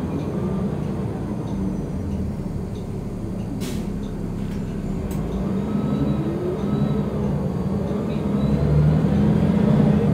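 Inside a city transit bus under way: the engine hums steadily over road noise, its note rising about halfway through, with a couple of sharp rattles and a louder stretch near the end.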